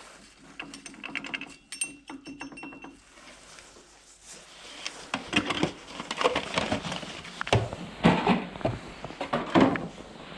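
Metal motorcycle engine parts clinking and clanking as they are handled on a bench, with a ringing tone for about two seconds near the start and a quicker run of louder clanks in the second half.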